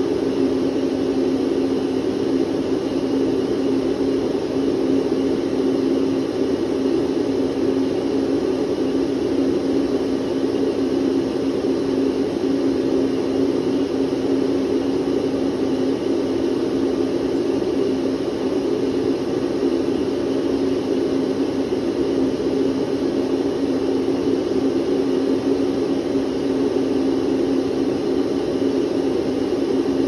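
Electric vacuum cleaner running at a constant speed: a steady whir of rushing air with a constant hum underneath.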